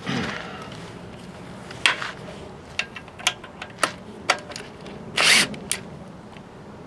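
Hand tools and small metal parts clicking and knocking while a lawnmower engine is taken apart: a string of sharp, irregular clicks, with a short, louder rasping burst about five seconds in.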